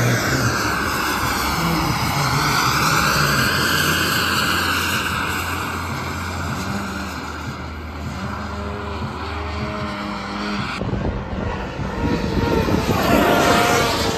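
Radio-controlled model aircraft flying, its engine and propeller droning and shifting in tone as it manoeuvres, with an abrupt change in the sound about eleven seconds in.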